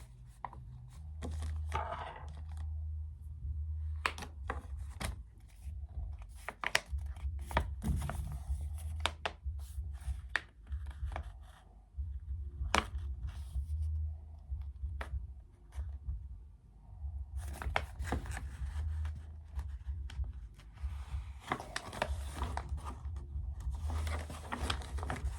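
Paper leaflets and packaging from a drone box being handled: rustling, crinkling and tearing, with many scattered sharp clicks and taps and a pulsing low rumble underneath.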